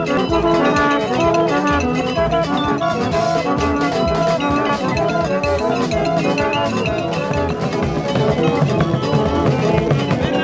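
An ensemble of side-blown horns plays interlocking short notes at many different pitches, over a steady drum beat.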